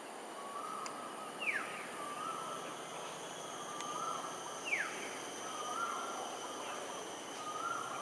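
Animal calls over a steady background hiss: a short, level note repeats about every second and a half, and twice a quick, downward-sliding whistle sounds out, the loudest calls.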